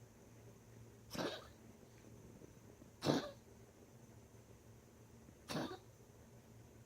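Dog coughing three times, each a short cough about two seconds apart, as it breathes out. It is coughing constantly after tracheal ring surgery for a collapsing trachea.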